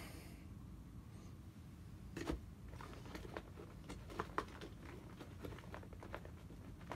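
Faint clicks and rustling of hand tools being handled in the pockets of a fabric tool bag, starting about two seconds in, with a few sharper knocks among them.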